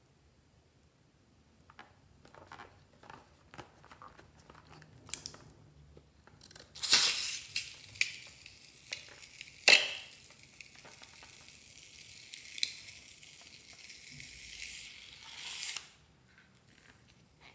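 Crackling, crinkling handling noises that build into a steady high hiss lasting about nine seconds, broken by two loud sharp cracks.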